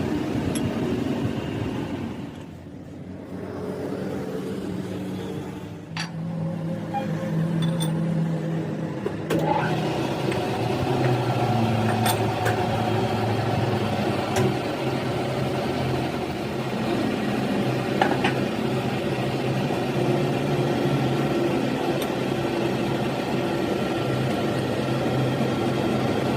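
Workshop machinery motor running steadily, with a few sharp clicks. The sound drops briefly about two to five seconds in, then runs at a steady level again.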